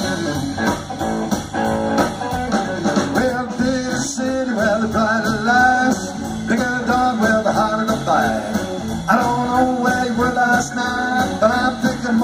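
Live band playing through a PA: electric guitars, with a man singing a wavering melody line over them.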